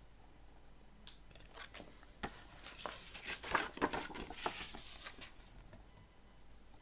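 Glossy paper pages of a CD booklet being turned by hand: a run of quiet rustles and soft paper flaps, busiest in the middle and dying away after about five seconds.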